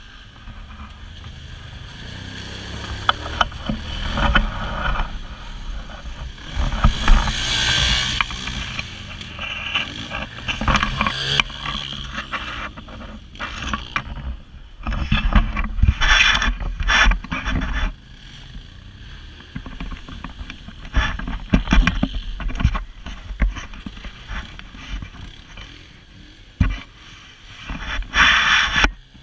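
ATV being ridden over a rough dirt trail: its engine running in uneven surges under wind rush on the microphone, with frequent knocks and rattles from the bumps.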